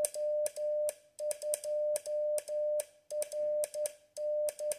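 CW Morse code: the transceiver's sidetone, a steady tone of about 600 Hz keyed in dots and dashes by a photosensitive relay that follows a smartphone's flashing light. A sharp click from the relay marks each on and off.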